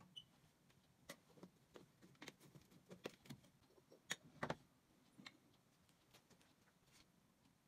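Faint, scattered clicks and light knocks of glass cups and dishes being handled on a kitchen counter, with a sharper tap and then a duller knock a little past four seconds in.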